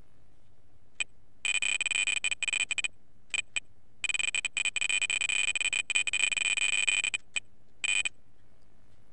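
Electronic beeping at one fixed high pitch, switching on and off in irregular bursts, some short and some over a second long. It starts about a second in and stops near the end.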